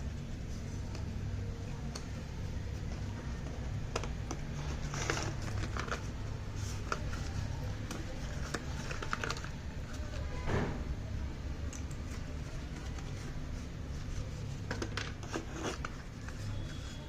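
Packaging being handled by hand: scattered small clicks, taps and short rustles over a steady low hum.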